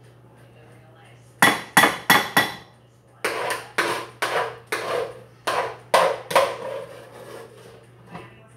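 A spoon knocking against a pot and bowl as mashed potatoes are scooped and shaken out: four sharp knocks about a second and a half in, then a run of about eight ringing knocks.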